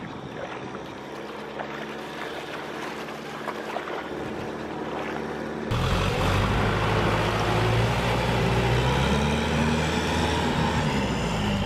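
Farm tractor's engine running as the tractor churns through a flooded, muddy rice field. Faint at first, it becomes suddenly much louder and closer about six seconds in, its pitch wavering slightly.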